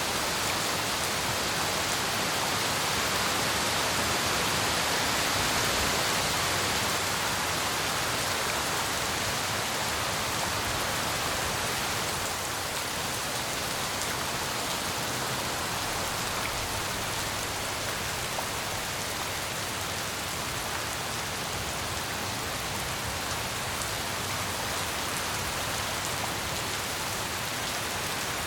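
Steady heavy rain falling, an even hiss with scattered drop impacts, easing slightly partway through.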